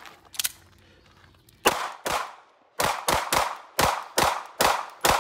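Sig P365 9mm pistol firing nine shots: two, then a quicker string of seven, each sharp crack trailing off briefly.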